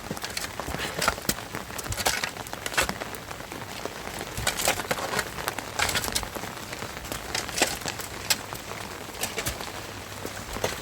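Steady rain falling, with irregular sharp taps of drops striking close by.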